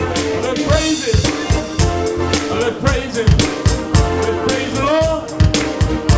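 Upbeat gospel band playing: drum kit keeping a steady beat with snare hits, bass and sustained instrument tones, with some singing.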